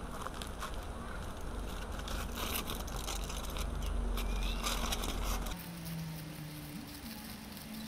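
Dense crackling and rustling, with a low rumble under it that cuts off suddenly about five and a half seconds in. A bird chirps briefly.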